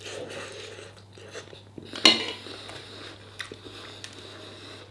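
A metal spoon clinks sharply against the bowl about two seconds in, with a few lighter clicks of cutlery and dishes around it.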